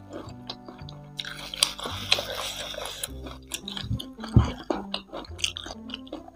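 Close-miked chewing and crunching of crispy fried chicken feet in sauce, with short crisp crackles and wet mouth sounds, over background music. One low thump a little past four seconds in.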